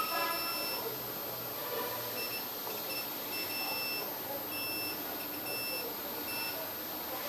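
Digital clamp multimeter beeping as its test leads are touched to the solar panel's junction-box terminals: short high electronic beeps in an irregular string, some held a little longer, over a steady hiss.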